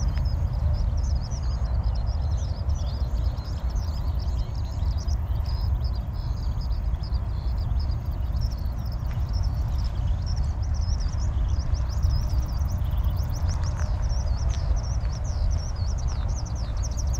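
Many small birds chirping busily and continuously, over a steady low rumble on the microphone.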